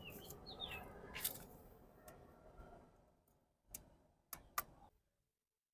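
A few faint, scattered clicks and taps of hands handling parts during a motorcycle oil change, over low background noise; the sound cuts out to silence near the end.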